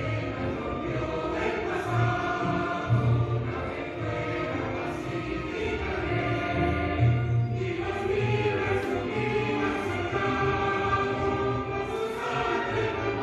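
Choir singing with instrumental accompaniment.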